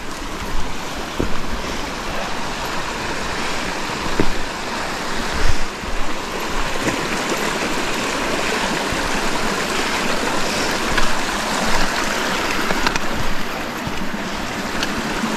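Small mountain creek cascading over rocks, a steady rush of running water, with a few short knocks scattered through it.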